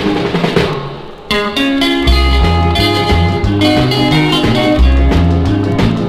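Instrumental break of a 1960 rockabilly record with a Latin-flavoured rhythm: guitar, bass and drums. The band drops away briefly about a second in, then comes back in with held guitar notes over a steady bass and drum beat.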